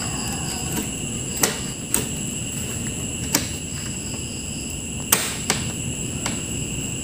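About six sharp clicks and knocks of plastic and metal parts being handled on an opened LED TV's chassis, the loudest about five seconds in, over a steady high-pitched background whine.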